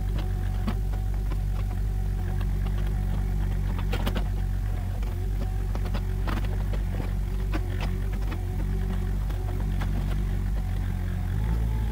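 Mini excavator's diesel engine running steadily while the bucket works dirt, with scattered knocks and clanks from the digging. The engine speeds up and gets louder near the end.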